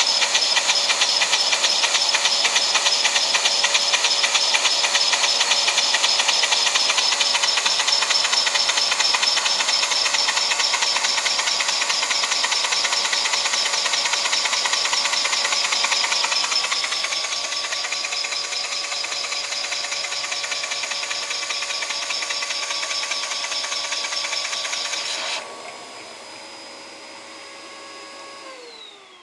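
Single-cylinder Lego vacuum engine clattering very fast, driven by suction from a vacuum cleaner whose motor whines steadily underneath. About 25 seconds in, the clatter and air rush stop abruptly, leaving the vacuum cleaner's whine, which falls in pitch near the end as the motor spins down.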